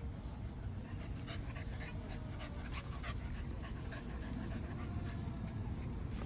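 Two dogs play-wrestling, panting with irregular short huffs of breath and scuffling.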